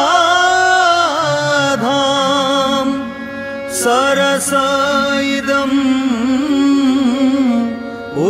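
Odissi classical music in Raag Basant: a slow, ornamented melody in long held, wavering notes over a steady drone, easing off briefly about three seconds in, with a couple of short bright metallic strikes about four seconds in.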